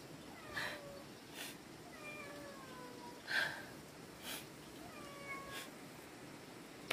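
A woman crying quietly: short sniffling sobs and a few high whimpering cries that fall in pitch.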